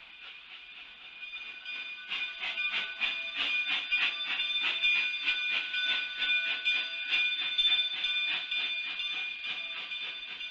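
Coal-fired narrow-gauge steam locomotive working hard as it pulls out, its exhaust chuffing in quick even beats of about four a second that get louder about two seconds in.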